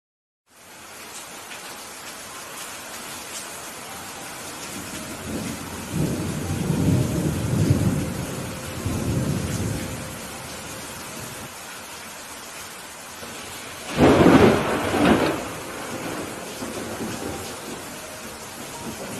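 Steady rain hiss with thunder: after a brief silent gap at the start, a low rolling rumble builds from about six to ten seconds in, then a louder, sharper thunderclap comes about fourteen seconds in and rumbles away.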